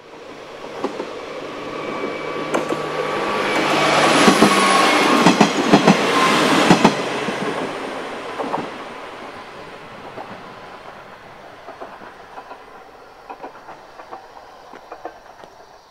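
A KiHa 40-series diesel railcar passes at close range, its engine running and its wheels clicking over the rail joints. The sound builds to its loudest about four to seven seconds in, then fades away.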